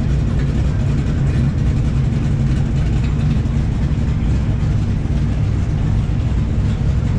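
A vehicle engine running steadily, a low, even rumble that holds without revving.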